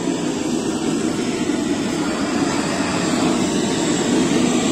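LPG gas blowtorch burning with a steady rushing jet noise, singeing the hair off a slaughtered goat's legs; it grows a little louder about three seconds in.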